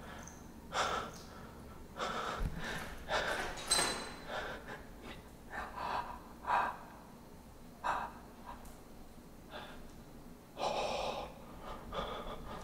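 A person breathing hard, with irregular short breaths and gasps. A brief high squeak comes about four seconds in.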